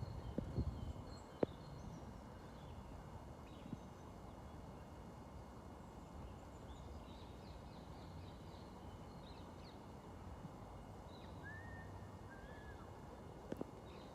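Faint woodland ambience with scattered short bird chirps and two longer whistled bird notes about two-thirds of the way through. A few sharp knocks sound in the first second and a half.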